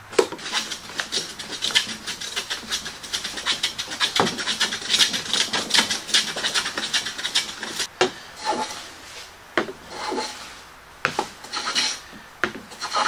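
Hand plane shaving wood across a box-jointed board, stroke after stroke. A quick run of close strokes for about the first eight seconds, then a few slower, separate strokes.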